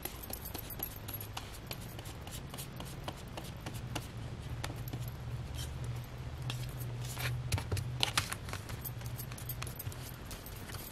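Paintbrush spreading Mod Podge over cardstock: a run of small scrapes and clicks as the bristles work the glue, and the card is handled, lifted and laid back down. A low steady hum sits underneath.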